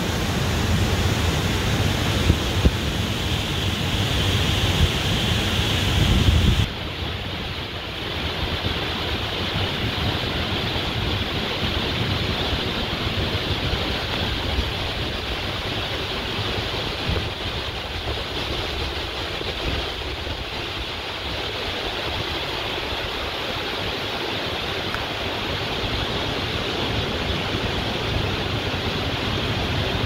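Waterfall, water rushing down over rocks in a steady, even rush. About seven seconds in the sound changes abruptly, losing some of its deepest and highest parts, then carries on just as steadily.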